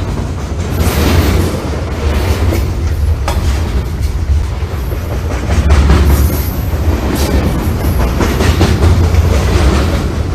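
Train running along the track with a heavy low rumble and the clickety-clack of wheels over rail joints, with a brief high squeal about six seconds in.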